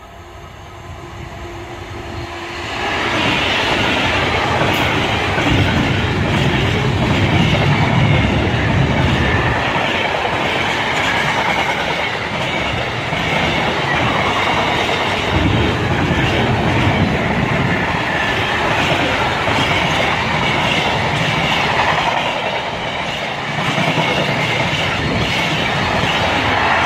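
A Class 66 diesel-hauled intermodal freight train approaches and passes close by. The noise builds over the first three seconds as the locomotive draws level, then stays loud and steady with the clatter of the container wagons' wheels over the rail joints.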